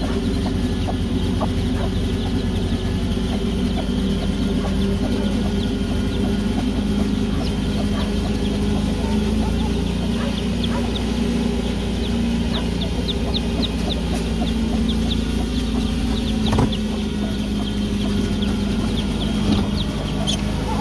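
A brood of chicks peeping, with a quick run of high peeps midway, and a mother hen clucking among them, over a steady low hum.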